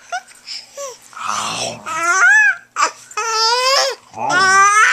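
Baby squealing with laughter: three long high-pitched squeals, about two, three and four seconds in, after a short breathy noise.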